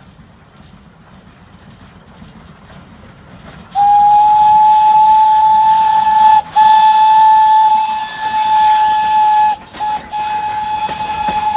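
Steam whistle of an 0-6-0 tank steam locomotive blowing a single steady note for a grade crossing. A few seconds of low train rumble come first, then two long blasts, a short toot and another long blast: the long-long-short-long crossing signal.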